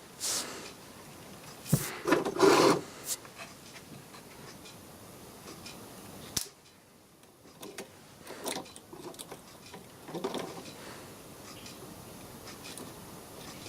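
Hands handling small parts and wires on a workbench: rubbing and scraping with several clicks and knocks. The loudest scrapes come around two seconds in, and there is a sharp click about six seconds in.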